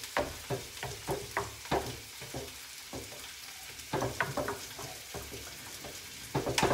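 Minced pork sizzling in a frying pan while a wooden spoon stirs it, scraping and knocking against the pan a few times a second, with a run of louder strokes near the end.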